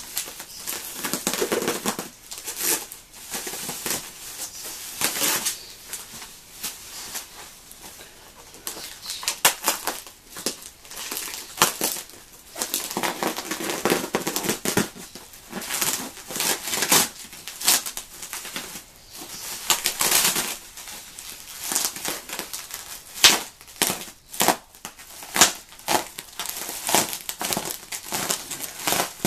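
Bubble wrap and plastic packaging crinkling and rustling as hands pull it apart and cut it open with a box cutter, in irregular bursts with many sharp crackles.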